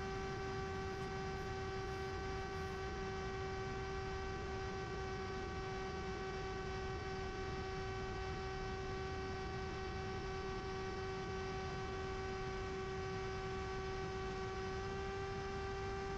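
Electric motor and propeller of a Ritewing Mini Drak flying wing at steady cruise, a constant droning whine with a rush of wind underneath, picked up by the camera on the plane. Its pitch rises slightly near the end.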